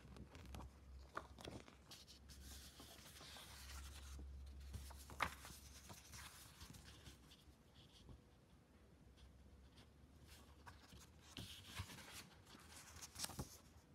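Faint rustling and rubbing from handling packaging, with scattered light clicks and one sharper click about five seconds in.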